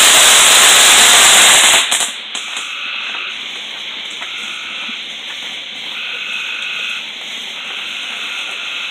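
Ground fountain fireworks spraying sparks with a loud hiss that drops off sharply about two seconds in. After that a quieter steady hiss goes on, with faint short whistles now and then.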